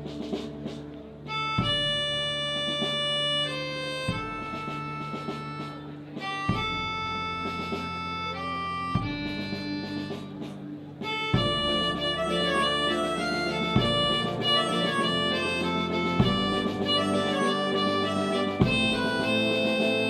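Military fanfare band playing slow, held chords that change every two to three seconds, then growing louder and fuller with faster-moving notes about halfway through.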